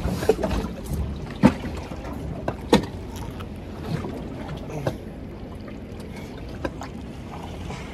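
Ambient sound aboard a boat on open water: a steady low rumble of wind and water, broken by a few sharp knocks, the loudest about a second and a half in and again near three seconds in.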